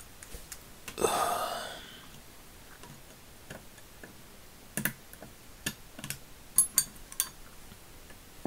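Snap-ring pliers working the snap ring out of the head of a vintage S-K made Kraeuter 3/8" drive ratchet: a short metallic scrape about a second in, then a scatter of small sharp metal clicks in the second half.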